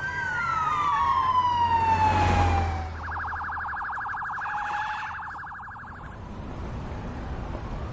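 Police car siren: a wail falling in pitch over about three seconds, then a fast warbling yelp for about three seconds, and a new wail starting to rise near the end. A low vehicle rumble runs under the first part.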